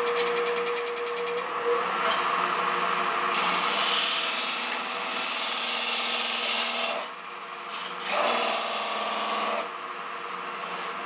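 Wood lathe running with a steady motor hum while a turning tool cuts into the spinning yellow birch bowl blank. The scraping comes in two stretches, from about three and a half seconds in and again about eight seconds in, as a marking line is scored into the wood.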